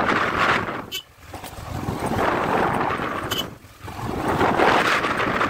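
Wind rushing over the microphone of a moving motorcycle, mixed with riding noise. It swells and dips sharply twice, about a second in and again near four seconds.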